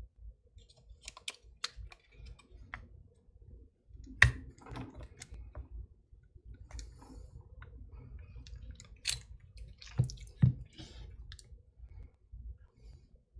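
Scattered light clicks, taps and scrapes of a small tool working a stuck lock cylinder in a Master Lock padlock, trying to pry it free. A sharper knock comes about four seconds in, and two more come near ten seconds.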